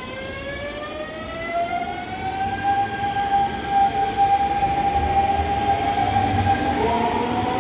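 Hanshin 5500 series electric train pulling away, its VVVF inverter and traction motors whining in a pitch that rises and then levels off. The running noise and low wheel rumble grow louder as it gathers speed.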